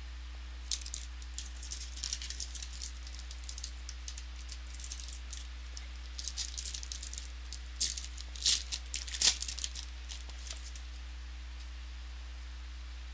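Football trading cards and their pack wrappers being handled: a run of crisp crackles and rustles that is loudest around eight and nine seconds in and stops at about eleven seconds. A steady low electrical hum runs underneath.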